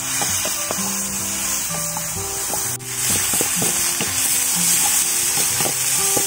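Food frying in hot oil in a pan: a steady, loud sizzle, briefly dipping nearly halfway through. Background music with held notes plays underneath.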